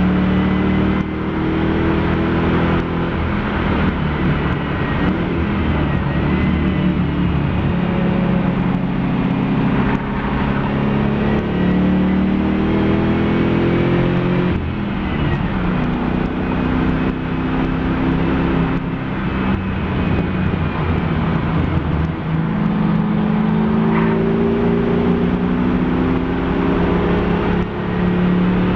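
Mopar-engined Nissan Fairlady Z race car running hard at full throttle. The engine note climbs in pitch and drops sharply every few seconds as it shifts up through the gears and lifts off for corners.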